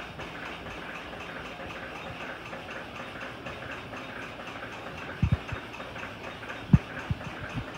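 Room tone: a steady hiss with a faint, regular ticking. A few short, dull low thumps come in the second half: a close pair about five seconds in, and the loudest about a second before the end.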